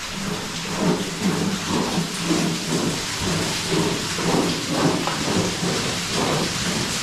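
A sandbag of ore being hauled up a wooden chute on a rope, scraping and rattling along the planks with a steady hiss and a pulse about twice a second.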